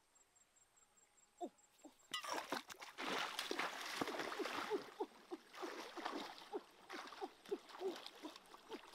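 Water splashing and gurgling as a person moves through a shallow stream, with many quick bubbling plops. It starts suddenly about two seconds in.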